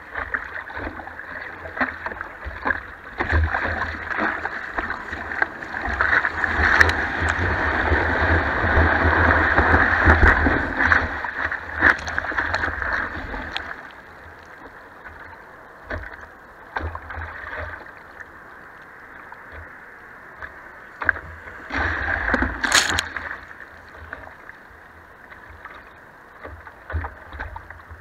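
Whitewash rushing and splashing against a surfboard and the action camera mounted on its nose as the board rides a broken wave. Loudest in the first half, then quieter lapping with scattered splashes and one sharp burst of spray a little past two-thirds through.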